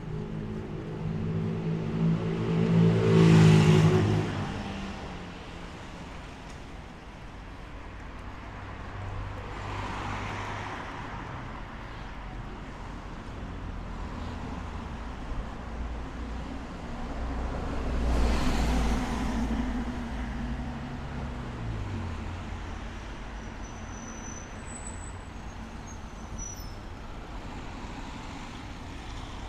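Street traffic: motor vehicles passing close by over a steady background of traffic noise. The loudest passes with a deep engine note about three seconds in, and another swells past about eighteen seconds in.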